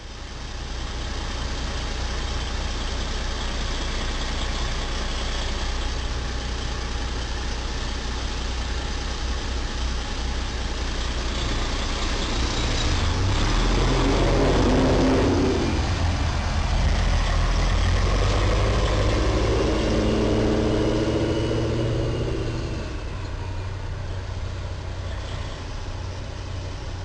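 Road traffic at an intersection: a steady low rumble of engines and tyres, with a vehicle passing loudly about halfway through. Just after it comes a few seconds of heavy engine drone, which falls away shortly before the end.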